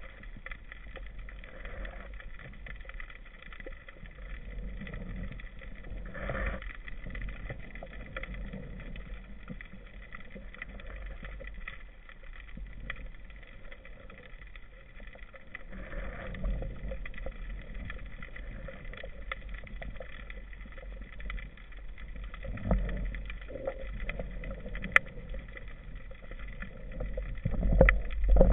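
Muffled underwater ambience picked up by a camera in a waterproof housing on a speargun: a low steady rumble of water with a few soft swells. There is one faint click about two-thirds of the way through, and the water noise grows louder near the end.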